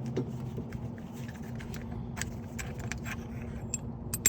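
Scattered light metallic clicks and clinks as a brake caliper and piston-spreading tool are handled, growing sharper near the end, over a steady low hum.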